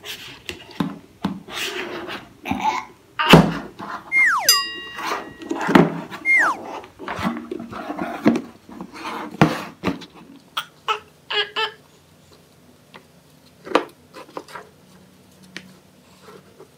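Plastic sweet tub handled on a tabletop: its lid pulled off, the tub knocked and tipped and picture cards rattled inside, giving a run of sharp knocks and clicks, the loudest about three seconds in. A child gives two brief high squeals around four and six seconds in, and after about ten seconds only occasional light taps remain.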